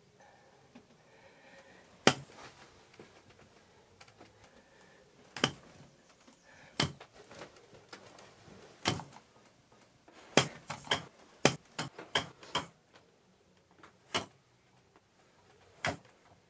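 A series of sharp knocks and taps at irregular intervals, single ones a second or two apart and a quick flurry of about eight in the middle.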